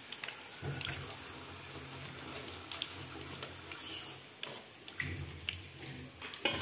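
Breaded chicken deep-frying in hot oil in a wok, with scattered crackles and pops, while a metal ladle lifts pieces out of the oil, which drips off them. A few sharper clicks near the end as the ladle knocks against the pot.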